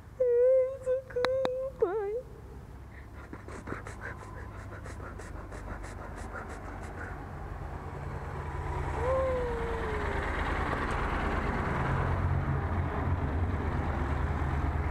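Yamaha Super Ténéré 1200 parallel-twin motorcycle approaching and pulling up, its engine and road noise growing steadily louder through the second half. A short hum-like voice opens it.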